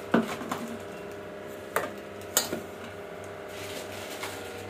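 Stainless steel mixer-grinder jars and lids being handled on a kitchen counter: about five short knocks and clinks in the first two and a half seconds, over a steady low hum.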